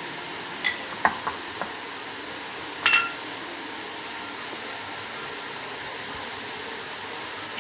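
A few sharp clinks against a glass bowl: one about a second in, three small ticks just after, and the loudest near three seconds in, each ringing briefly. A steady hiss runs underneath.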